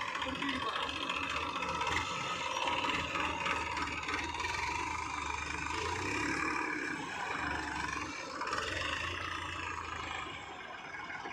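Diesel engines of a Massey Ferguson 7250 DI tractor and a JCB backhoe loader running together, with rattling, as the backhoe's bucket pushes the tractor out of deep sand. The sound eases somewhat near the end.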